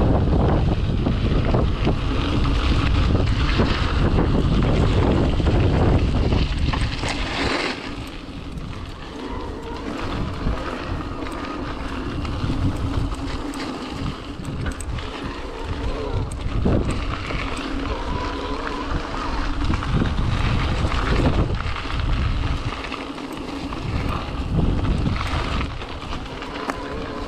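Wind buffeting the microphone of an e-mountain bike being ridden along a singletrack trail, heavy for the first several seconds and then easing, over a scatter of short knocks and clatters from the bike on rough ground.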